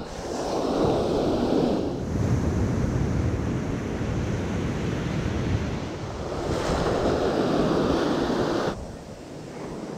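Atlantic surf breaking and washing up the beach in a steady rush, with wind on the microphone. It swells louder twice, first within the first two seconds and again from about six and a half seconds, then drops off sharply near nine seconds.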